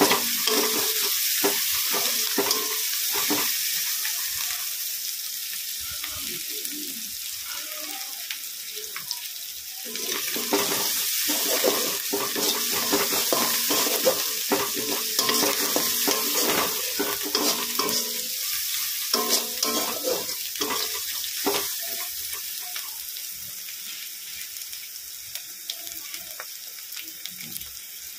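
Spiced onion masala sizzling in mustard oil in a kadai while a spatula stirs and scrapes through it, the stage of frying the masala down until the oil separates. The stirring comes in spells, busiest from about a third of the way in, and the sizzle grows quieter near the end.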